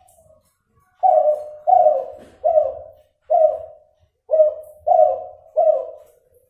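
Derkuku sinom dove, an F2 cross of a Kelantan spotted dove with a cuhu hen, cooing a series of seven low coos, each falling away at the end. There is a short pause after the third coo. The breeder describes this bird's voice as still nasal, with an inconsistent number of back notes.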